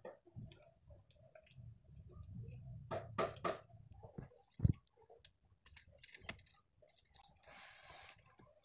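Irregular sharp clicks and taps close to the microphone, a quick cluster of three about three seconds in and one heavy low thud soon after, over a faint low rumble.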